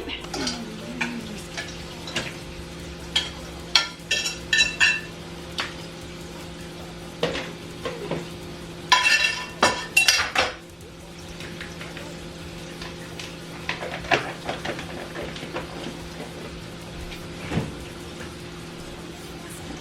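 Dishes, pots and metal utensils clattering and clinking while a kitchen counter is tidied up, with the loudest ringing clatters about four to five seconds in and again around nine to ten seconds. A steady low hum runs underneath.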